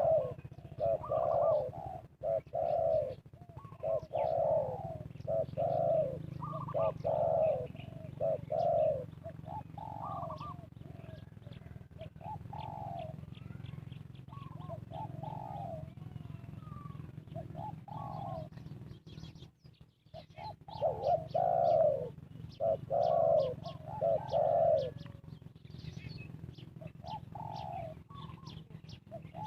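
Spotted doves cooing over and over in short phrases of several coos with pauses between, the decoy-style calling used to lure wild doves. Many short, high chirps or ticks run over the cooing, with a brief lull a little past the middle.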